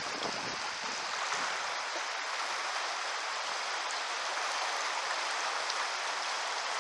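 Steady rush of river current flowing over a shallow riffle.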